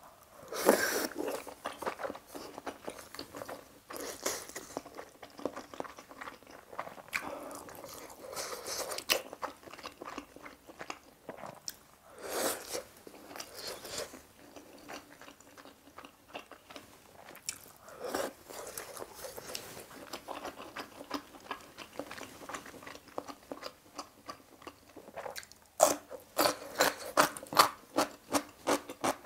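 Close-miked eating: biting and chewing of stew food in the mouth, with scattered louder bites, then a run of rapid crisp crunches, about three a second, near the end.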